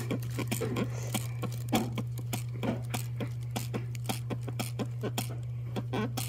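Handheld ear-irrigation sprayer pumping water into a child's ear to flush out impacted earwax: a string of short clicks and squirts, about two to three a second, over a steady low hum.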